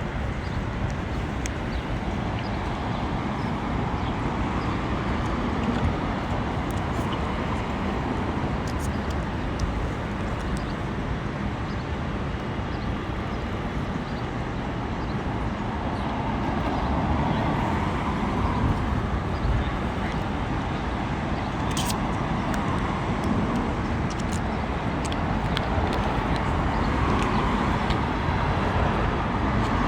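Steady street traffic noise, cars passing, swelling twice in the second half, with one sharp click about two-thirds of the way through.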